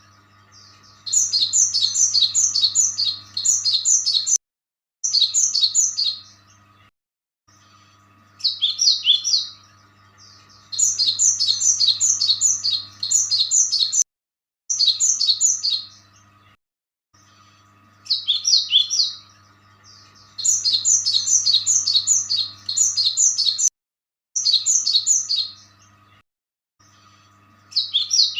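Small bird chirping: rapid runs of high notes in bursts a few seconds long, broken by sudden cut-offs, over a faint steady low hum.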